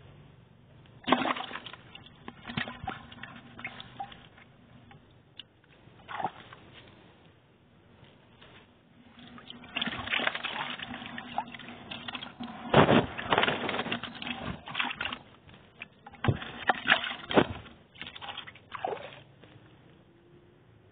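A live fish splashing in shallow water in a plastic bucket, the water sloshing as a hand handles it. Irregular bouts of splashing with short quiet gaps, the loudest past the middle and again near the end.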